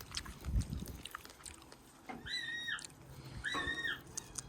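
A parrot gives two short, high, steady-pitched calls about a second apart, among small clicks and crunches of it eating a strawberry. A dull low thump comes about half a second in.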